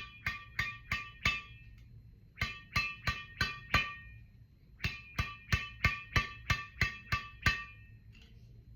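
The string bed of a freshly strung JNICE Elastic Elves 6 badminton racket, at 26 lb mains and 28 lb crosses, being struck in a tension sound check. Each strike is a sharp ping with a short ring, in three quick runs of about four or five strikes a second.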